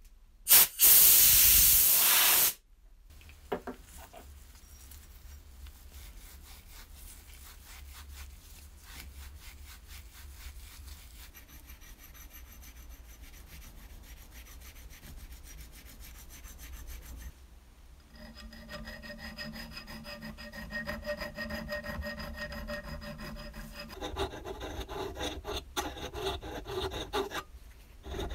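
A loud rush of noise for about two seconds at the start, then an abrasive pad rubbing a corkscrew's metal spiral for a long stretch. Near the end a file scrapes along the spiral in repeated strokes.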